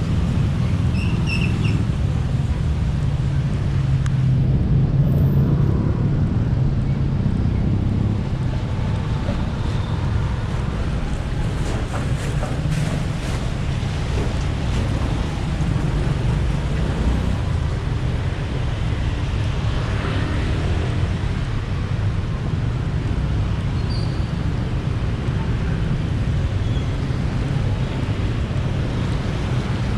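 Busy city-street traffic: a steady drone of engines and tyres from passing cars and other vehicles.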